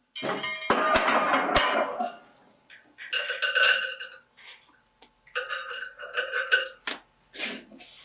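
Metal barbell weight plates clanking and ringing against each other as a plate is handled and set onto a loaded weight stack, in three spells of clinks with a sharp click near the end. This is weight being added to load a knife's lock in a strength test.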